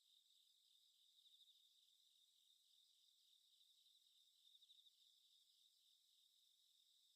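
Faint chorus of crickets chirping steadily in a fast pulsing chirr, swelling briefly about a second in and again past the halfway point.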